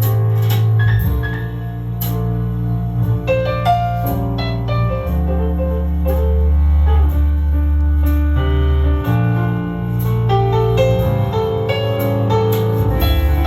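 Music with keyboard or piano notes over deep bass notes held for a second or more at a time, played through a car audio system: a Nakamichi iA3 head unit driving Beyma component speakers.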